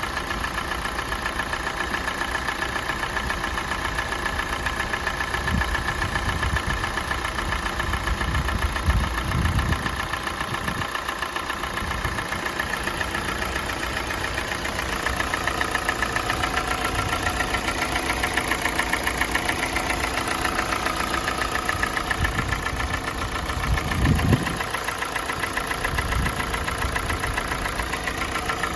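Kia Sportage's 2.0-litre G4NA four-cylinder petrol engine idling as it warms up, with a fast steady knock running through the idle. The knock grows as the engine warms and was absent at the cold start; the owner judges it is not piston knock. Two brief low thumps come about a third of the way in and again near the end.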